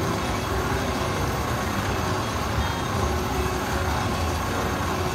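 Steady casino-floor din: a low rumble of background noise from the surrounding slot machines and crowd, with faint electronic slot-machine tones.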